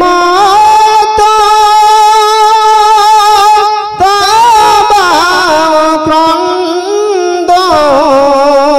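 A man singing a Bengali gojol (Islamic devotional song), holding long drawn-out notes with a wavering vibrato. There is a brief break about four seconds in, and the melody drops to a lower note near the end.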